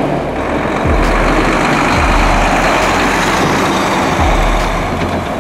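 Volvo FH truck with tall custom exhaust stacks driving past, its engine and road noise loud and steady.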